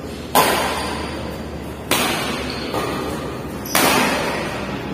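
Badminton rackets smacking a shuttlecock back and forth in a doubles rally. There are three sharp hits about a second and a half apart and a softer one between the second and third, each ringing on in the echo of a large hall.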